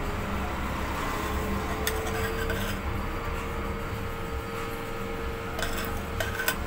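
A steel spoon scrapes and scoops damp, crumbly ragi flour in a stainless steel bowl and tips it into a stainless steel puttu maker tube. A few light clinks of spoon on metal come about two seconds in and several more near the end.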